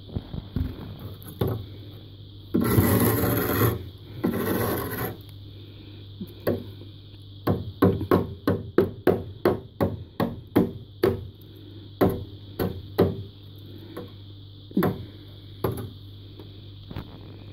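Thick frost in a freezer compartment scratched and scraped by hand: two long scrapes a few seconds in, then a quick run of short scratches about two a second, thinning out toward the end, over a steady low hum.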